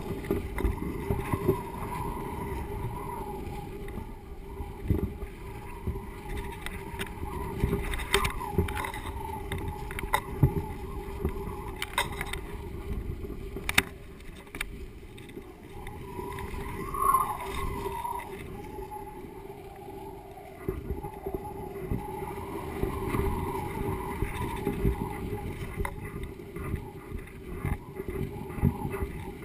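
Wind buffeting the microphone of a GoPro HD Hero hanging below a kite: a steady low rumble with scattered knocks and rattles from the swinging camera rig, and a faint wavering whine that comes and goes.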